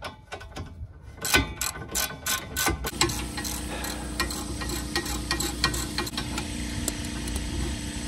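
Hand ratchet clicking as it backs out a loosened 17 mm brake caliper bolt, in quick runs of clicks for about three seconds, then only now and then. A steady low hum comes in about three seconds in.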